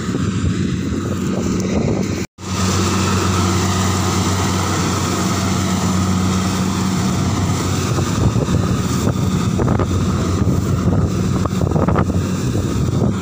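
Engine of a rice combine harvester running steadily, a continuous low drone. The sound cuts out for an instant about two seconds in.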